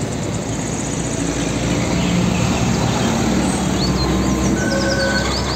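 Road traffic, with a loaded car-carrier truck driving past: a steady rumble of engine and tyre noise. Birds chirp over it in the second half.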